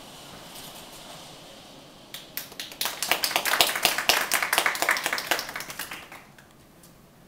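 A small audience clapping, starting about two seconds in, swelling, then thinning out and stopping about six seconds in.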